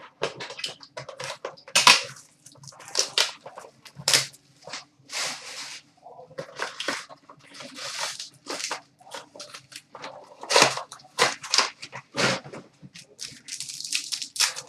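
Trading cards and foil pack wrappers being handled: a quick string of snaps, slides and crinkles as cards are flipped and shuffled and packs are opened.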